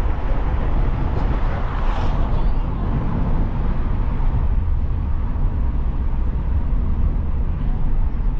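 Road noise inside a moving car's cabin: a steady low rumble with tyre hiss, swelling briefly about two seconds in.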